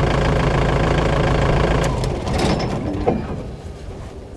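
An engine idling steadily, then cutting out about two seconds in.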